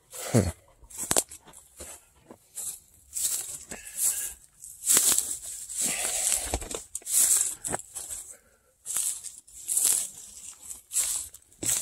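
Repeated crunching and rustling noises, coming irregularly about once a second.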